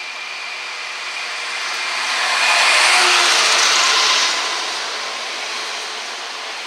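Class 66 diesel-electric locomotive, with its two-stroke V12 diesel running, passing close by at the head of an intermodal container freight train. It grows louder as it approaches, is loudest as it goes by a few seconds in, and drops suddenly about four seconds in, leaving the steadier rumble of the container wagons rolling past on the rails.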